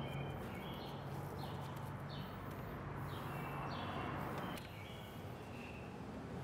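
Faint short chirps from birds in the background, repeating every second or so over a low steady hum.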